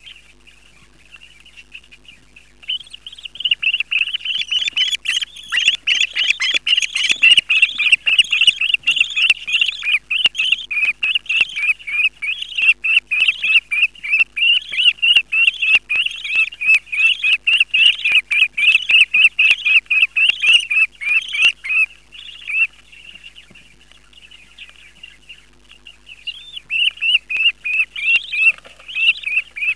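Budgerigar chicks begging while being fed, a fast, rhythmic run of high chirps, about three a second. The chirping stops for a few seconds about three quarters of the way through, then starts again near the end.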